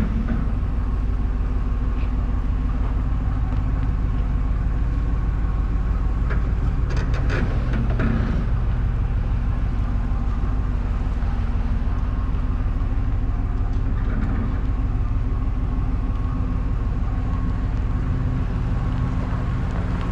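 Truck engine running steadily while towing, with a few brief rattles about seven seconds in.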